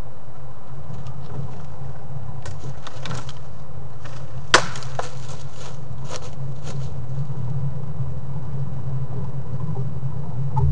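Twigs and brush snapping and crackling as a whitetail buck works a scrape and its overhanging branch, with scattered clicks and one sharp, loud crack about halfway through. A steady low hum runs underneath.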